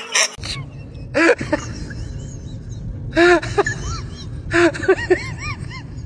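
A voice giving short calls that rise and fall in pitch, in three bursts (about a second in, after three seconds, and near five seconds), over a steady low rumble.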